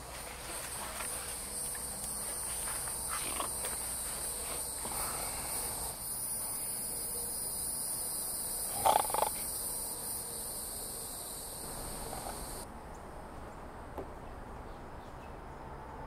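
Night insects chirring steadily in a high, continuous band, with one brief louder noise just past the middle. The insect sound cuts off abruptly about three-quarters of the way through.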